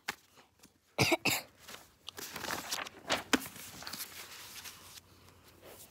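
Two loud, sharp bursts close to the microphone about a second in, then rustling and shuffling as a child handles plush toys and paper right beside the phone.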